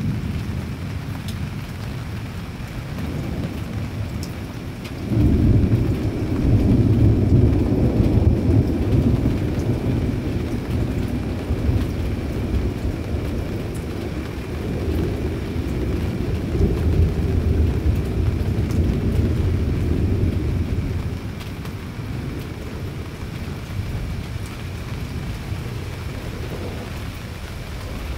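Thunder rolling over steady rain: a deep rumble starts suddenly about five seconds in, rolls on for some fifteen seconds, then dies away.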